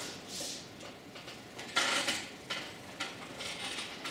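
A few light knocks and rustles from a laptop being handled on a desk, the strongest about two seconds in.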